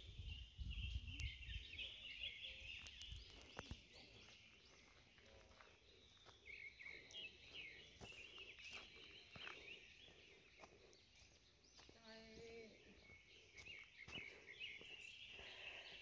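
Faint forest ambience of many small birds chirping and trilling high-pitched, overlapping without a break. A low wind rumble on the microphone sounds in the first few seconds.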